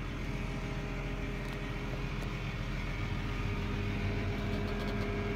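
A New Holland tractor's diesel engine running steadily while the tractor drives, heard from inside the cab, with a steady high whine over the rumble.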